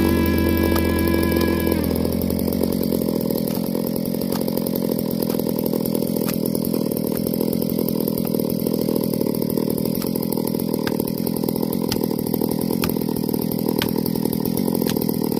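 Chainsaw engine idling steadily, with faint ticks roughly once a second. Music fades out in the first two seconds.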